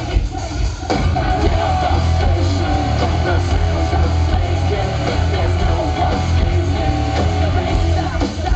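Rock band playing live through a stage PA: distorted electric guitar, drums and a heavy, steady bass, with some singing, heard from in the crowd. The band thins out briefly in the first second before the full sound returns.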